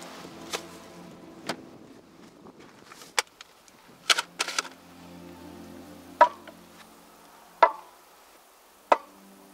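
Food containers, jars and bottles being set down one after another on a wooden table: a series of sharp knocks and taps, roughly a second apart.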